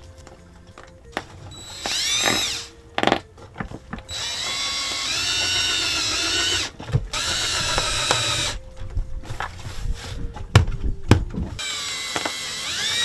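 Cordless drill/driver running in four bursts, its motor whining up to speed, driving screws with washers through foil-faced sound insulation into a boat's engine-room hatch panel. Short knocks and clicks come between the bursts.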